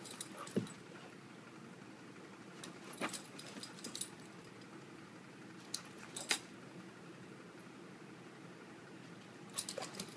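A dog's metal collar tags jingling in short clinks every second or few as she moves about.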